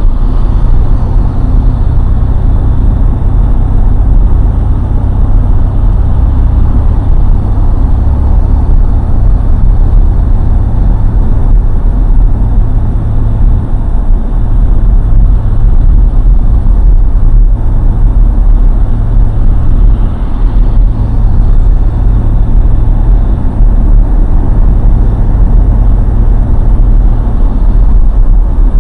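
Steady low rumble of a car driving on the road: engine drone and tyre noise, with no breaks.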